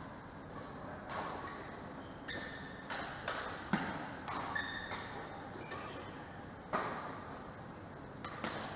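Badminton rally: a string of sharp racket-on-shuttlecock hits at irregular intervals, the loudest about midway, with short high squeaks of court shoes on the floor, echoing in a large hall.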